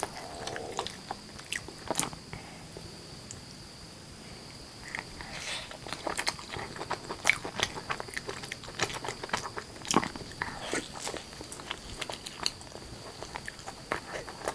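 Close-miked chewing and biting of chicken curry and rice: many short mouth clicks, with a lull about three seconds in. A faint steady high whine runs underneath.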